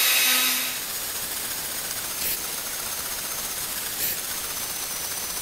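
Small CNC router spindle running with a fine engraving bit milling the copper of a PCB: a steady whirr. A louder, hissier layer drops away about half a second in, and two brief scraping ticks come about two and four seconds in.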